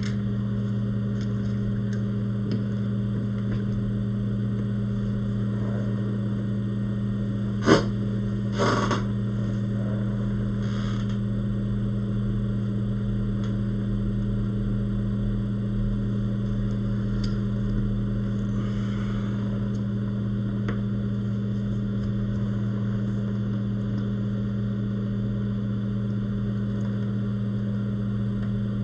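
Steady electrical hum of running workbench equipment, such as the fans of a hot-air rework station, with a sharp click about eight seconds in and a short rattle a second later.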